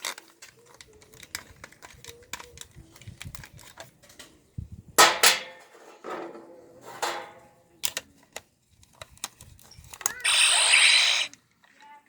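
Plastic clicks and knocks from a toy Power Morpher and its coins being handled, with a few louder knocks around the middle. About ten seconds in, the morpher plays a short electronic sound effect of about a second.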